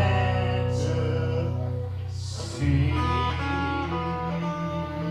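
Live country-rock band playing an instrumental passage: guitar over a sustained bass line, with light cymbal hits.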